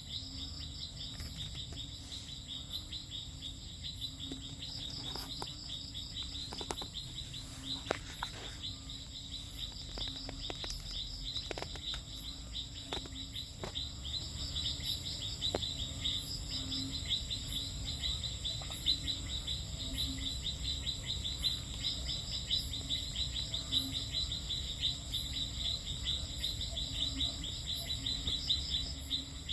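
A night insect chorus of crickets and similar insects: rapid, dense chirping over a steady high whine, with a pulsing call that returns every few seconds. A few sharp clicks come in the first half.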